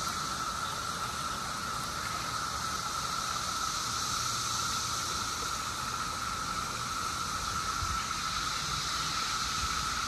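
Chorus of male 17-year periodical cicadas, mostly Magicicada septendecim, calling from the trees to attract females. It forms a steady, unbroken drone with one whining pitch and a hiss above it.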